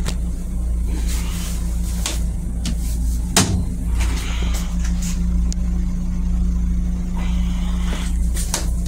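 Steady low rumble and hum of a Long Island Rail Road M7 electric railcar, heard from inside its restroom. About three and a half seconds in there is one sharp clack as the plastic toilet lid is raised, with a few lighter ticks around it.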